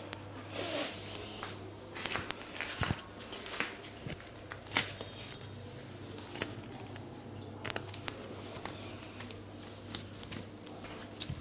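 Clothing rustling with scattered soft taps and clicks as a massage therapist's hands move and press a lying person's legs through a stretch, over a low steady hum.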